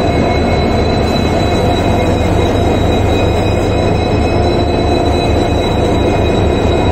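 WDG-4 diesel-electric locomotive's 16-cylinder two-stroke EMD engine running steadily at close range, a pulsing low rumble with a steady high whine above it, as the locomotive creeps up to the coach to couple.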